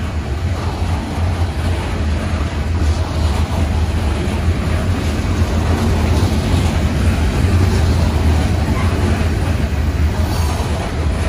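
CSX freight train on the move: the diesel locomotives give a steady low rumble over a wash of wheel and rail noise.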